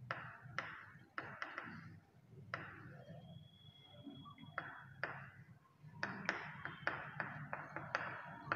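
Chalk tapping and scratching on a chalkboard while a diagram is drawn: irregular sharp taps, several followed by short scratchy strokes, with a faint thin high squeak for about a second and a half in the middle.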